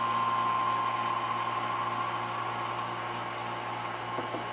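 Electric rotary-vane vacuum pump running steadily, with a constant hum and a high whine that slowly eases, drawing the liquid through a ceramic filter funnel during vacuum filtration to remove the carbon catalyst.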